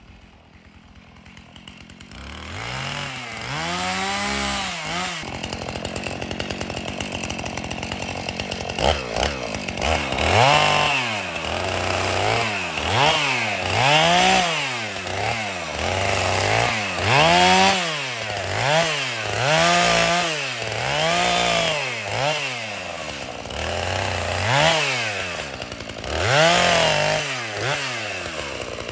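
Husqvarna chainsaw limbing a felled spruce, revving up and dropping back to idle again and again. The revs come about every second and a half after the first few cuts.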